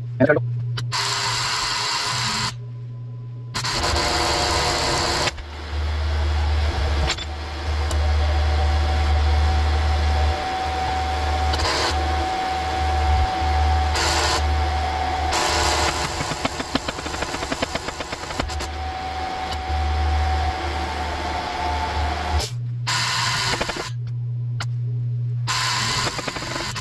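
Powered shop press running as its ram presses a wheel bearing into a steering knuckle. It runs in spells, with a steady hum and a thin whine through the long middle stretch, then stops and starts briefly twice near the end.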